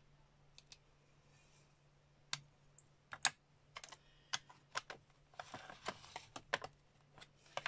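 Scattered light plastic clicks and taps of stamping supplies being handled: an acrylic stamp block and ink pad cases picked up, opened and set down on the craft mat. The taps come thickest in a short cluster past the middle.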